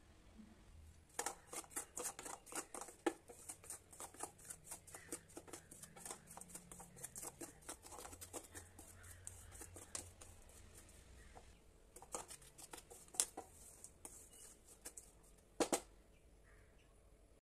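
Wooden spatula scraping and tapping against a steel kadai while stirring a crumbly maida and ghee mixture: rapid strokes that pause about ten seconds in, then resume with a few sharper knocks near the end.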